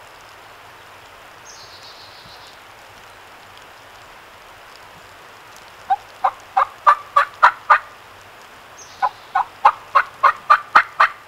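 Turkey calling: two series of loud, sharp notes, about eight in each at roughly three a second, one in the middle and one near the end.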